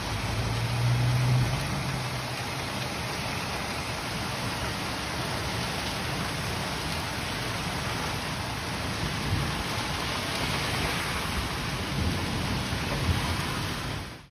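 Hail and heavy rain pelting a street, a dense steady hiss, with a low rumble during the first second and a half.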